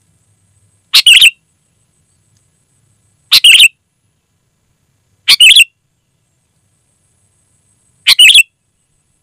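Sooty-headed bulbul (kutilang) calling: four short, loud, high call phrases a couple of seconds apart, with silence between them.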